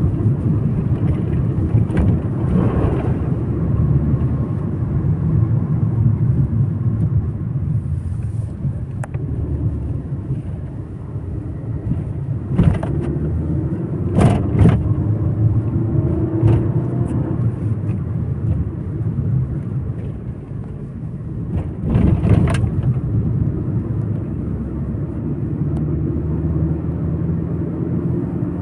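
Road noise of a moving car: a steady low rumble of engine and tyres, broken by a few short knocks or bumps, the sharpest about halfway through.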